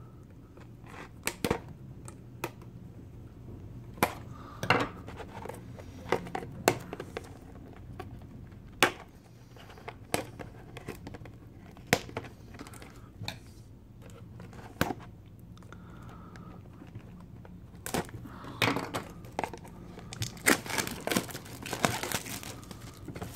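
A shrink-wrapped trading card box being handled and unwrapped: scattered sharp taps and clicks as the box is turned, then denser crinkling and tearing of its clear plastic shrink wrap over the last few seconds.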